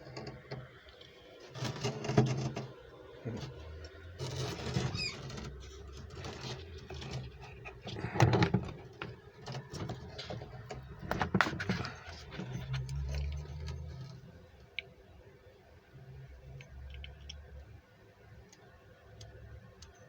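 Hand-handling of lathe tooling and packaging: rustling and scraping, with a few sharp knocks, the loudest about 8 seconds in and another about 11 seconds in.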